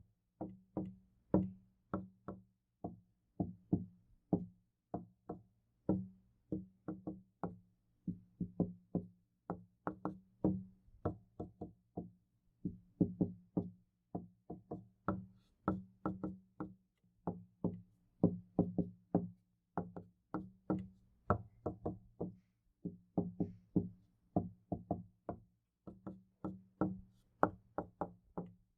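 Knocking on a door, a few knocks a second in irregular clusters without a break, each knock leaving a low ring.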